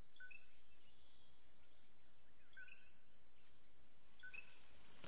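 Steady high-pitched insect chirring, with short bird chirps three times.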